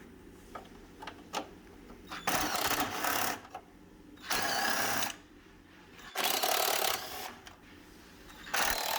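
Power tool run in four bursts of about a second each, a couple of seconds apart, after a few light clicks.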